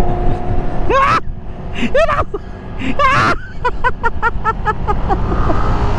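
Motorcycle riding noise, a steady rumble of engine and wind, with a high voice calling out three times about a second apart and then a quick run of short laughs.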